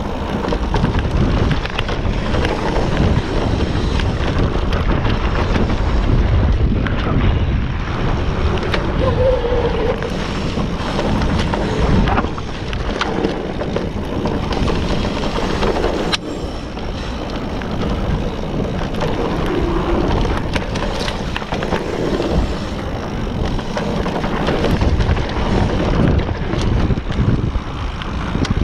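Wind buffeting the microphone, mixed with tyre and frame rattle, from an e-bike riding down a trail.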